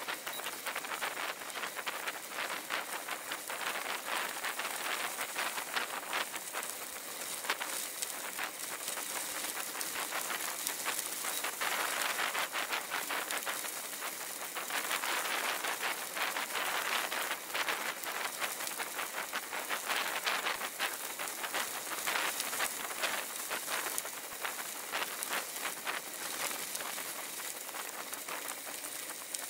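Bicycle tyres rolling over loose gravel: a continuous dense crackle of small stones under the wheels, rising and falling slightly in level.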